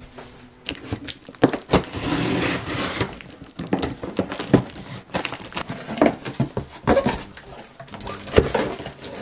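Cardboard boxes being handled and opened by hand: cardboard scraping and rustling, with a string of sharp knocks and taps and a longer stretch of crinkling about two seconds in.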